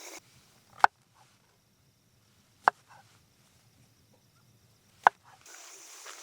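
Three sharp knocks, the first about a second in and the others about two seconds apart, each short and single.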